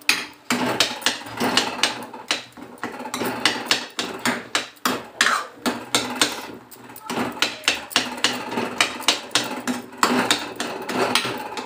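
Metal ladle knocking and scraping against a metal kadhai while saag with tomatoes is stirred and mashed, a few sharp clacks a second with short pauses.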